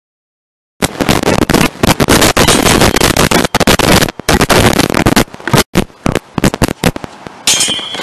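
Loud, dense crackling noise that starts suddenly about a second in and breaks up into separate crackles after about five seconds.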